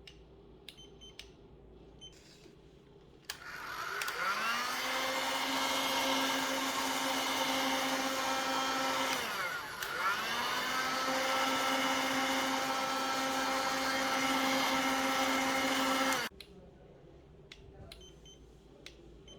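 A small electric motor spins up about three seconds in and runs with a steady whine. About halfway it briefly slows down and spins back up, and it stops suddenly a few seconds before the end. Light clicks come before and after it.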